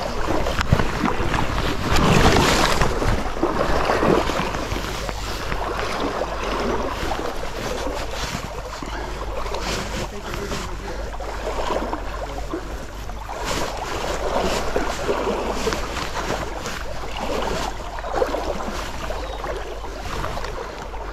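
Shallow stream water running and rippling around a wading angler's legs, with wind rumbling on the microphone. The water noise is briefly louder about two seconds in.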